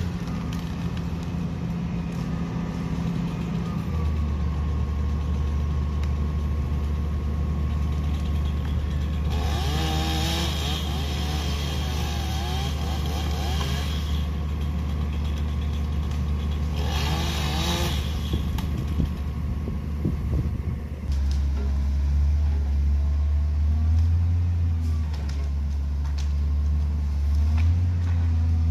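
A diesel engine runs steadily, with a chainsaw cutting in two stretches: several seconds a third of the way in, then briefly a little later. Later the engine sound grows louder and rises and falls.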